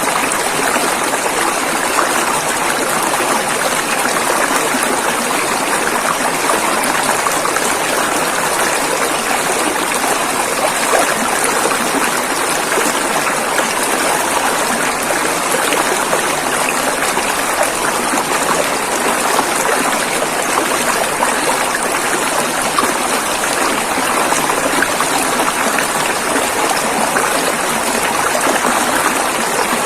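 River water flowing over rocks, a steady, even rush with no pauses.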